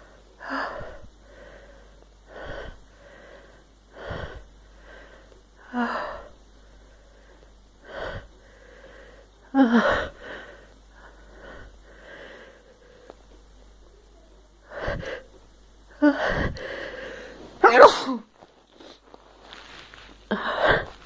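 A woman sneezing again and again, brought on by tickling her nose with a cotton swab. Short gasping, wheezy in-breaths every second or two build into sneezes, the loudest two near the middle and towards the end, with a quieter pause between them.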